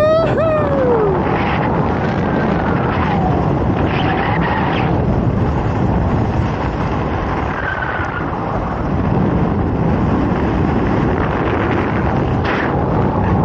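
Airflow rushing over the camera microphone during a parachute descent under an open canopy: a loud, steady rush of wind noise. Near the start a voice gives a short whoop that rises and falls in pitch.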